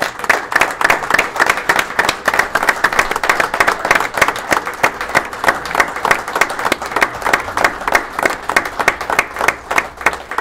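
Audience applauding, many hands clapping at once. The applause breaks out all at once and thins out near the end.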